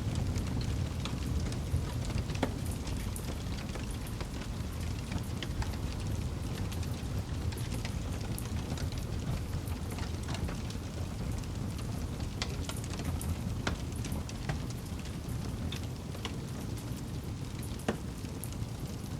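Wood campfire burning, with frequent crackles and a few louder pops over a steady low rumble.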